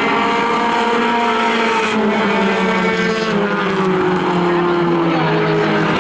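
A pack of four-cylinder compact race cars running at racing speed around the oval, several engines heard at once. Some engine notes slide down in pitch about halfway through as cars ease off for the turn.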